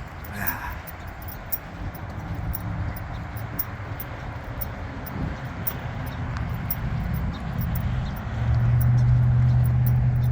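An engine running nearby: a low rumble that grows louder, with a steady low hum coming in about eight seconds in.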